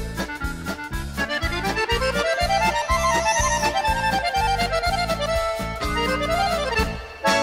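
Instrumental background music: a melody climbing and falling in quick steps over a steady bass beat.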